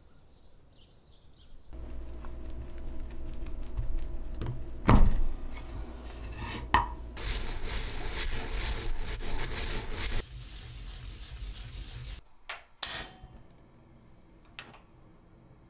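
Kitchen preparation sounds: a bowl and utensils handled on a counter, with a heavy knock about five seconds in and a few seconds of rubbing or scraping after it, over a low steady hum.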